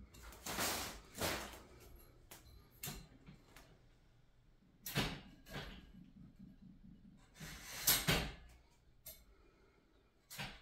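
Powder-coated steel tubes of an IKEA RIGGA clothes rack knocking and clacking together as the top rail is fitted onto the uprights. The clunks and rattles are irregular, with quiet between them, and the loudest come about three-quarters of the way through.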